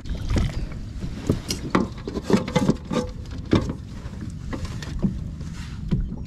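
Irregular knocks and thuds as a largemouth bass is handled and laid on a plastic measuring board on a plastic kayak deck, over a steady low wind rumble.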